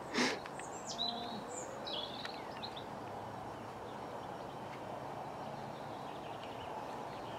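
Birds chirping in short calls during the first few seconds, over a steady outdoor background hum. There is a brief louder sound right at the start.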